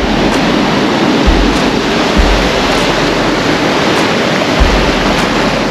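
Steady rushing noise of shore surf and wind, with several low thumps of wind buffeting the microphone.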